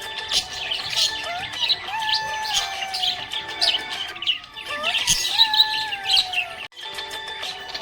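Budgerigars chirping and warbling in a rapid, busy stream of short high chirps, with a brief break near the end.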